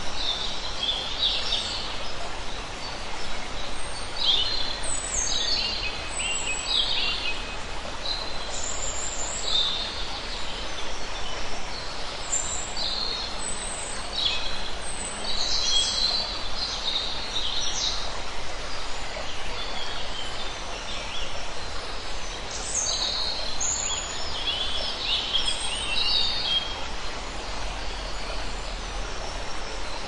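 Birds calling with short, high-pitched notes in quick clusters over the steady rush of water flowing over rocks in a forest stream.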